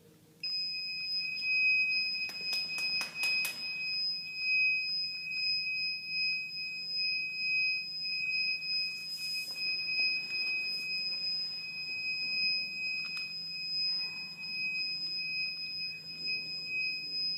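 An electronic buzzer on a small breadboard robot sounding one continuous high-pitched tone, switching on about half a second in. A few sharp clicks come two to three seconds in.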